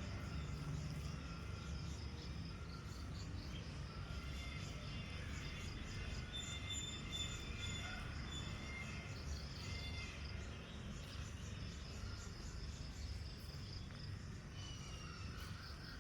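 Several small birds chirping and whistling, short repeated notes from more than one bird, over a steady low rumble of outdoor background noise.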